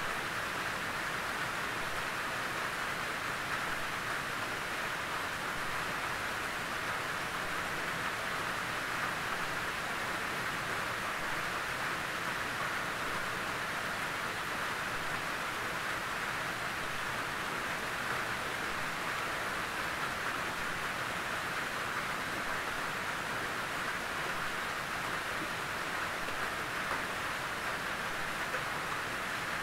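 Gentle rain falling steadily on a tin roof, an even patter.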